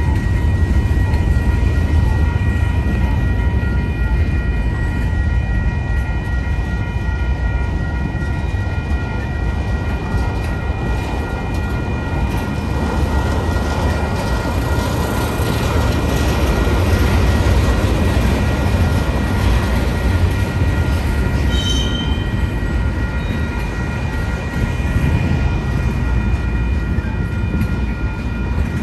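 Union Pacific manifest freight train's hopper and tank cars rolling past: a steady low rumble of wheels on rail, with steady high ringing tones over it and a brief squeak about two-thirds of the way through.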